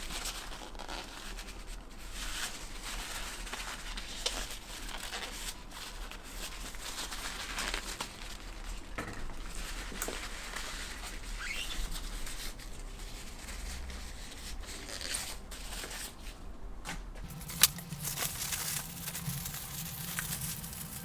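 Irregular rustling and rubbing of a wipe soaked in alcohol being drawn along a suspension fork's stanchions to clear off excess oil and dirt, with one sharp click about three-quarters of the way through.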